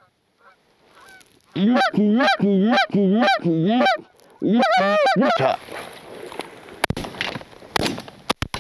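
Loud goose honking: a fast run of about seven honks, then a short second burst of three. Near the end come a couple of sharp bangs.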